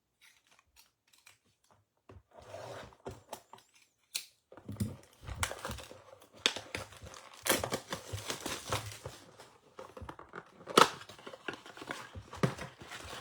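A blaster box of Topps Update baseball cards being opened by hand: irregular crinkling and tearing of its wrapping and cardboard, with the foil packs rustling, and a sharp snap about eleven seconds in.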